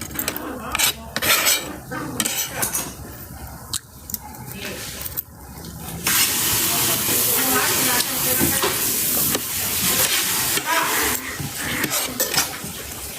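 Dishes and cutlery clinking and knocking during a meal, then about six seconds in a steady hiss sets in and keeps going.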